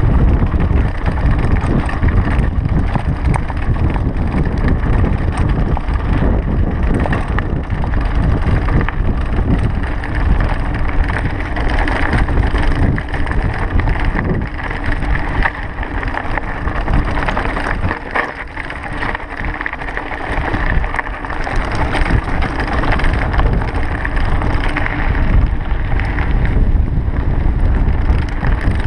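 Mountain bike rolling fast down a loose, rocky dirt trail: the tyres crunch over stones and the bike rattles, under steady wind buffeting on the microphone.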